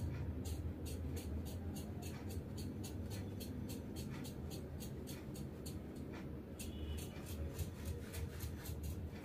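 Tailor's scissors snipping steadily through the neckline, about three to four cuts a second, with a short pause about six seconds in. A low hum runs underneath.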